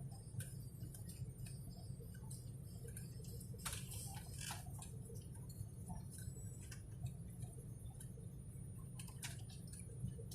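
Steady low hum of an airliner cabin in flight, with scattered light clicks and ticks on top, a cluster of louder ones a little before the middle.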